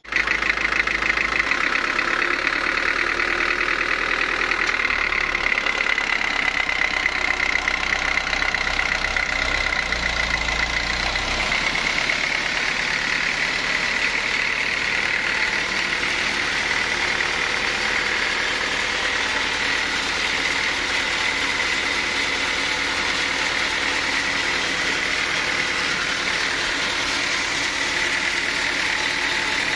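Sawmill machinery running steadily: a continuous high whine over a wide mechanical noise, with a deep rumble underneath that drops away about eleven seconds in.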